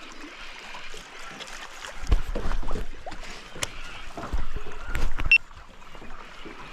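Irregular knocks and thumps in a small boat, with sharp clicks mixed in. They are loudest from about two seconds in until shortly before the end.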